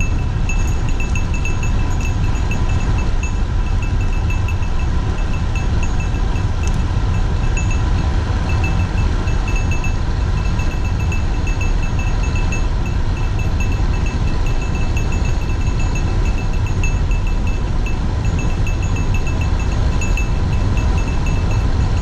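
Wind rushing over a handlebar-mounted camera, with tyre rumble from a road bike coasting fast downhill on asphalt: a steady low rush. Over it, a light high ticking repeats a few times a second.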